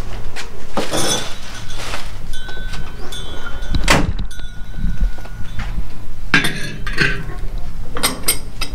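Stainless-steel parts of a murukku machine clinking and knocking as they are handled and fitted, a handful of sharp metallic knocks, over a steady low hum.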